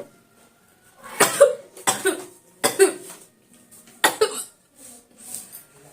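A woman sneezing four times in quick succession, starting about a second in, each one a short, sharp burst.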